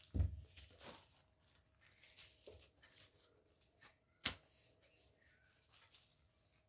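Light handling sounds of a wooden papad press and its plastic lining sheets as a pressed papad is lifted out, with one sharp click about four seconds in.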